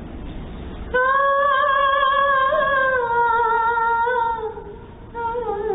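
A woman's voice humming a wordless alaap through a handheld microphone: one long held note with a gentle waver starting about a second in, easing off, then a second, slightly lower phrase near the end.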